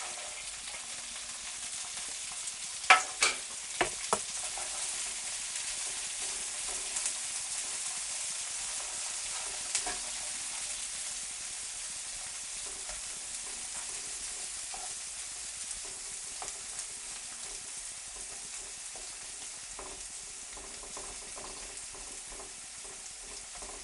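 Chopped courgette, red onion, cherry tomatoes, peas and sweetcorn sizzling in olive oil in a non-stick frying pan, a steady hiss. A few sharp knocks about three to four seconds in, and one more near ten seconds, stand out over it.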